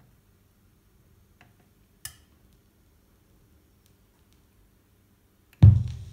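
Dual 1214 turntable running its automatic start cycle: a faint tick, then a sharper click about two seconds in as the mechanism lifts and swings the tonearm. Near the end comes a loud, low thump as the stylus of the Shure M75 cartridge sets down in the record's lead-in groove.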